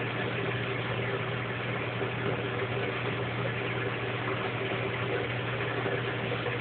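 Aquarium pump running: a steady low hum under an even hiss, unchanging throughout.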